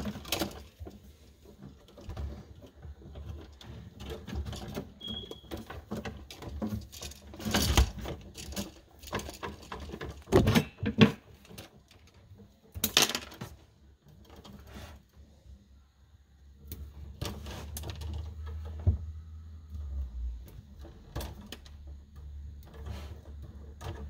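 Hand work on house wiring: electrical wires rustling and clicking as they are handled and stripped with wire strippers, with a few sharper clicks and snaps around the middle.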